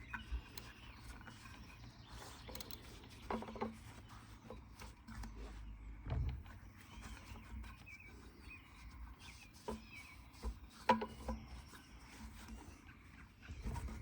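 Scattered light clicks and knocks of bike parts being handled during cleaning, over a faint steady low hum.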